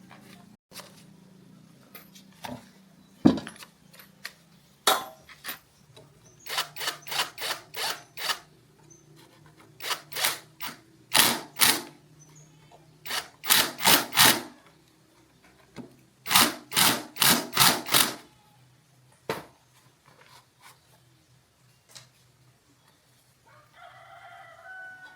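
Hand tool worked in quick back-and-forth rasping strokes, in bursts of about four to six, on a part in a small-engine workshop. A rooster starts crowing near the end.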